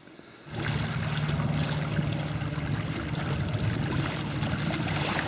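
Steady rushing and splashing of water, starting about half a second in.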